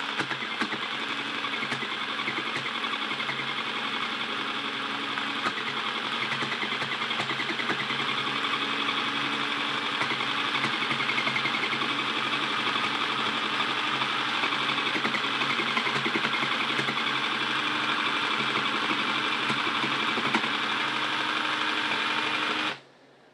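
Sewing machine running continuously, stitching fabric with a steady mechanical whir, then stopping abruptly near the end.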